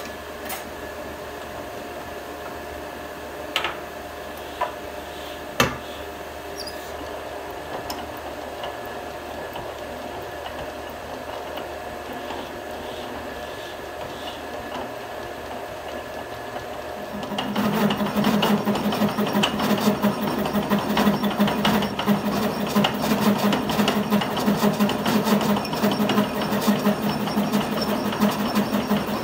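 Metal lathe running with a steady hum and a few sharp clicks. About two-thirds of the way in, a loud rapid chattering starts as the tap spinning in the chuck bites into the gear blank, cutting worm-wheel teeth.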